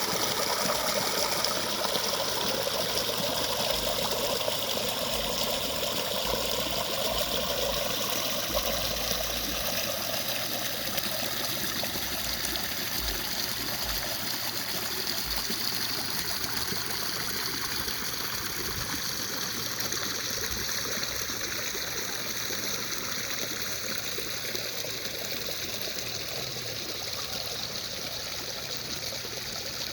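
A river or stream running steadily over rocks: continuous rushing and trickling water.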